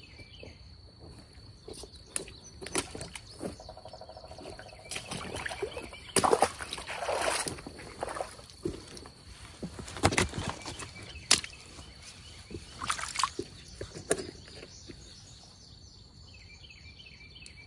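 River water splashing and sloshing at the bank's edge, with a run of irregular splashes about six seconds in and a few sharper ones around ten to fourteen seconds in. Behind them runs a faint, steady, high insect drone.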